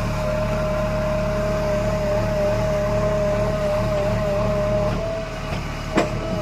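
JCB 3DX backhoe loader's diesel engine running steadily as it works soil, with a steady high tone over the drone. The drone eases about five seconds in, and a sharp knock sounds about a second later.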